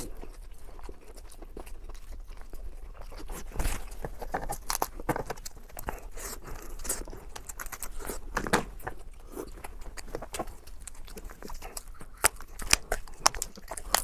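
Close-miked eating: chewing and crunching of food, with many quick crackles and clicks throughout.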